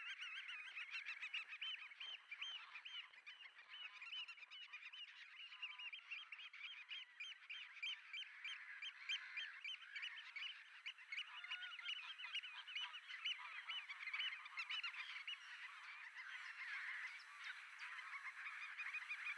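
A dense chorus of calling black-tailed godwits and black-headed gulls: short, nasal, hooked notes repeated several times a second, many birds overlapping, without a break.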